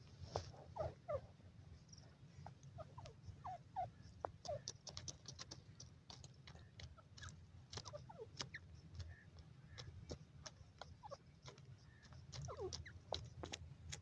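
Grey francolin giving faint, soft short chirps and clucks, each note sliding downward, scattered irregularly and mixed with thin sharp clicks.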